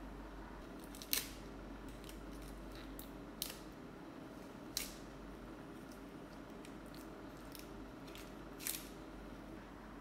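Sharp, scattered plastic clicks from a posable S.H.Figuarts action figure's joints and armour parts being moved by hand, the loudest about a second in, over a steady low hum.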